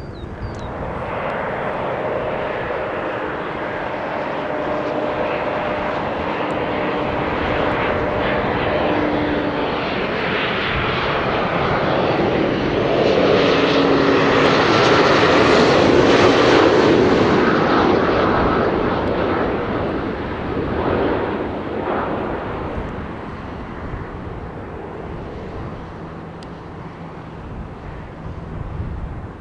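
Jet airliner passing close by: its engine noise builds steadily to a peak about halfway through, then fades away.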